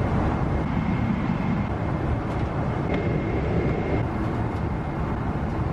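Steady airliner cabin noise in flight: an even low rumble of engines and rushing air, with a faint thin high tone held over it.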